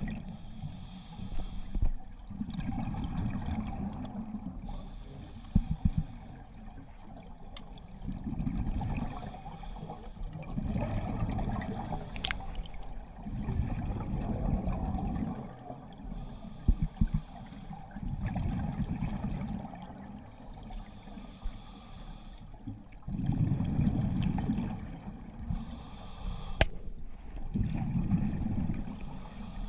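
Scuba diver breathing through a regulator underwater: a thin hiss on each inhale, then a low rush of exhaust bubbles on each exhale, repeating over several slow breaths. A few sharp clicks stand out among them.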